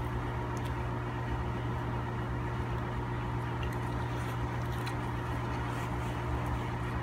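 Steady machine hum from an electrical appliance or motor running in the room, with a few faint ticks over it.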